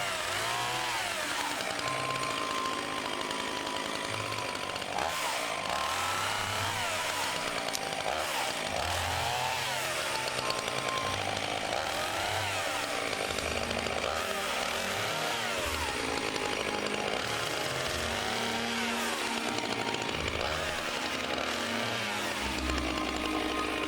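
Chainsaw with a freshly sharpened chain cutting through a log, its engine revving up and dropping back again and again as it bucks the trunk into rounds.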